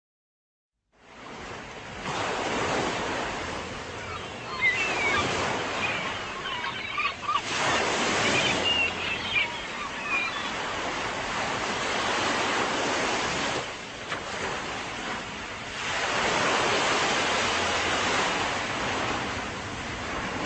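Ocean surf washing onto a beach, starting about a second in and swelling and ebbing every few seconds. A few short, high chirping calls sound about five to ten seconds in.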